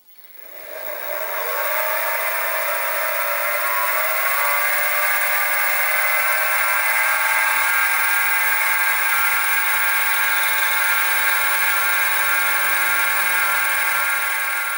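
Sieg SX2P mini mill spinning up, its whine rising in pitch over the first two seconds, then running steadily at speed while a small 3/32-inch drill bit bores a hole in a crank disc. The sound falls away near the end.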